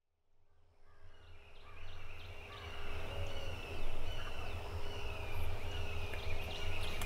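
Woods at dawn fading in: a wild turkey gobbling among many bird calls, over a steady low rumble.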